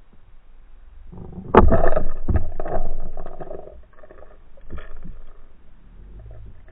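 Water rushing and knocking, heard underwater through an action camera's waterproof housing. It is quiet at first, then comes a loud burst of sharp knocks and rushing from about a second and a half in to nearly four seconds, with a smaller knock near five seconds.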